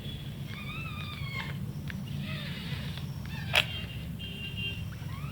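Pug puppies whining: several short, high squeaky cries that glide up and down. A sharp click comes about three and a half seconds in, over a steady low hum.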